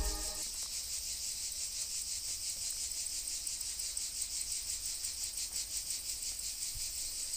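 A chorus of insects chirring steadily, a high, fast, evenly pulsing buzz. A faint low rumble runs underneath.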